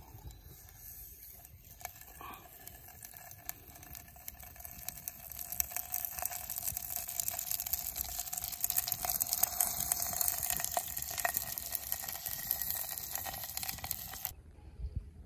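Small twig fire crackling and hissing, growing louder from about five seconds in as it catches, then cutting off suddenly near the end.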